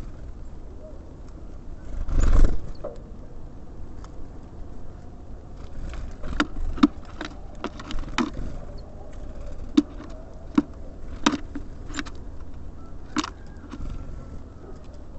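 Small birds at a feeder: irregular sharp taps and clicks of pecking and hopping, with one louder rushing noise about two seconds in. A low steady rumble runs underneath.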